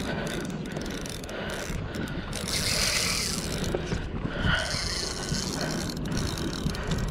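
Spinning reel working against a hooked yellowtail kingfish, its gears and drag running, louder in two stretches about two and a half and five seconds in.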